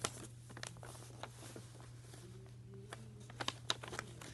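A sheet of paper being folded and creased by hand: scattered soft crinkles and taps, a cluster of them about three and a half seconds in, over a low steady hum.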